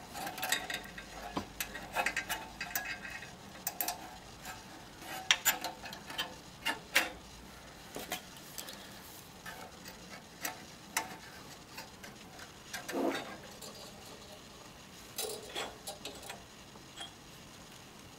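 Spring-ended metal straps being hooked onto the metal boiler cradles of a still's stand: scattered small metallic clicks and clinks, busier in the first half.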